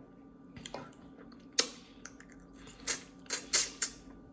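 Close-up eating sounds of crab being eaten: a scattered series of about six sharp clicks and cracks, a few close together past the middle, from the shell and from mouth smacking.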